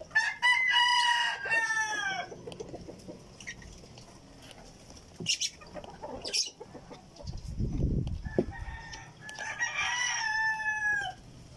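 A rooster crowing twice: a long crow right at the start and another near the end, each dropping in pitch as it trails off. A short low rumble comes between them.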